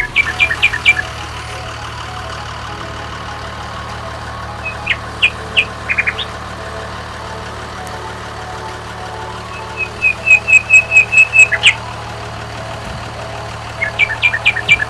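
An engine running steadily at a low hum, with birds chirping over it in short bursts of quick high chirps, the longest a fast even run of about ten chirps.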